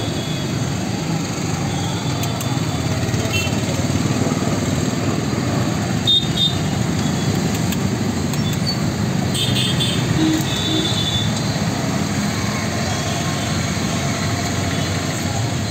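Steady roadside street noise with motorcycles and scooters running past, and a few short clicks and clatters, the sharpest about six seconds in.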